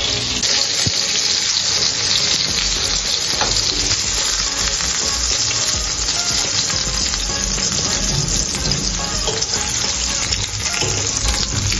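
Chicken burger patties sizzling in hot oil in a nonstick frying pan: a steady frying hiss, with a few light taps of a fork and silicone spatula as the patties are lifted out.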